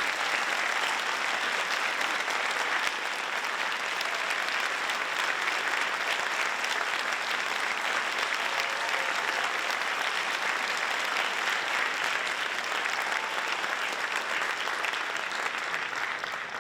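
Audience applauding: dense, steady clapping of many hands, easing slightly about three seconds in.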